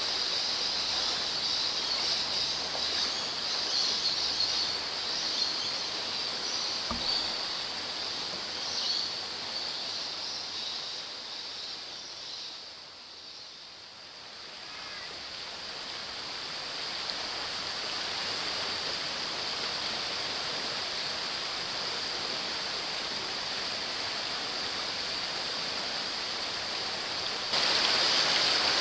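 Steady rush of creek water running over rocks in a small cascade. In the first several seconds it is mixed with splashing from feet wading through shallow water. It softens briefly around the middle and is louder near the end.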